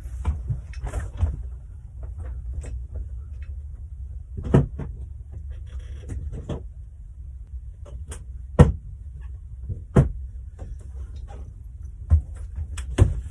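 Cabinet doors opening and closing and small items being handled, giving scattered knocks and clicks over a steady low rumble.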